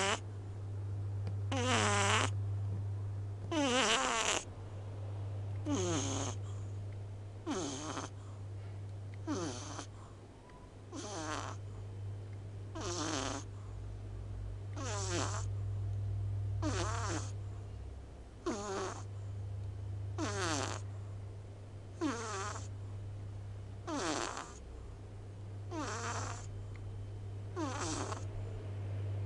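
A small pet cat snoring loudly in its sleep, one snore on each breath about every two seconds, each sliding down in pitch, over a steady low hum.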